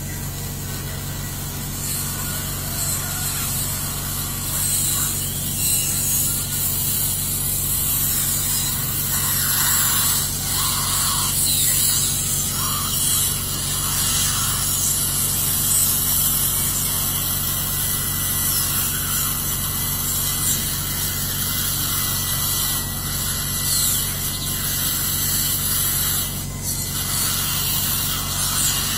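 Surgical suction hissing steadily through its tip in the mouth, over a low steady hum of operating-room equipment.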